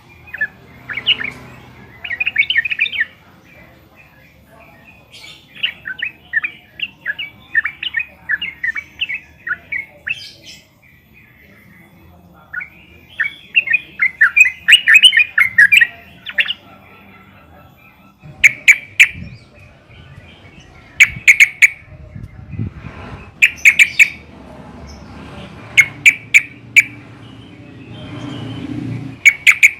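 Yellow-vented bulbul calling: runs of quick, bubbling chattering notes, then, past the halfway point, short groups of two or three sharp clipped notes repeated every couple of seconds.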